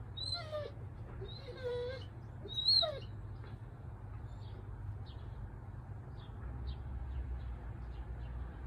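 Three short pitched animal calls, gliding in pitch, in the first three seconds, followed by faint, brief high chirps over a low outdoor rumble.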